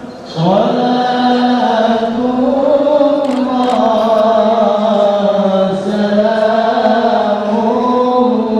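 Islamic devotional chanting: slow, drawn-out voices holding long notes that glide up and down. There is a brief break at the start, and the chant comes back in with a rising note about half a second in.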